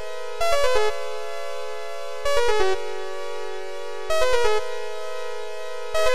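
Background electronic music: a synthesizer plays a short run of quick descending notes about every two seconds, each run settling into a held chord.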